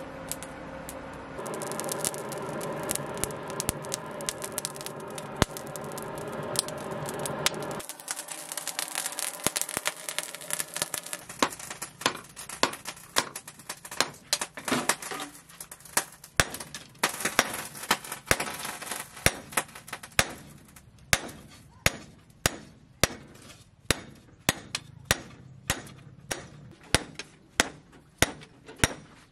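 Steady whir of a coal forge's air blower, then a hand hammer striking red-hot chainsaw-bar steel on a round anvil. The blows come irregularly at first and settle into an even beat of about two sharp metallic strikes a second.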